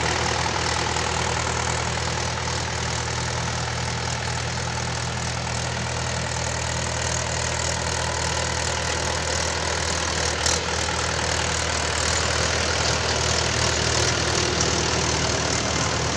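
Mahindra 415 tractor's four-cylinder diesel engine running steadily while working a potato harvester, with a dense clattering noise over the engine note and one sharp click about ten seconds in.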